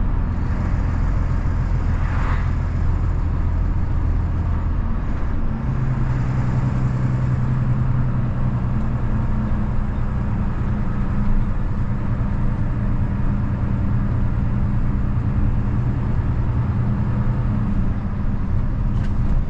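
Truck's diesel engine pulling under load up a steep grade, running steadily; the engine note changes about five seconds in.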